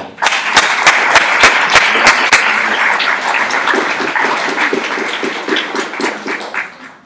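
Audience applauding in a hall as a speaker is welcomed to the lectern. The clapping starts at once, stays full for a few seconds, then thins and dies away near the end.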